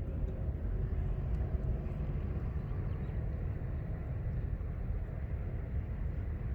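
Steady low rumble of outdoor background noise, with no gunshot.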